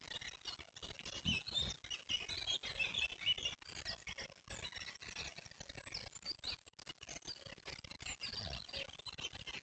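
Many small birds chirping and twittering in woodland, over a steady crackle of quick clicks, with a couple of soft low thumps.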